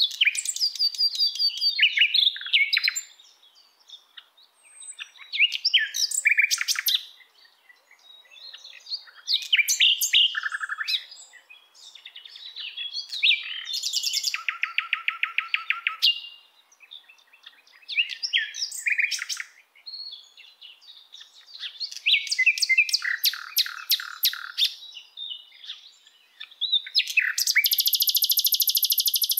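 Songbird singing: varied phrases of high chirps and rapid trills, each a few seconds long with short pauses between, ending in a loud fast trill.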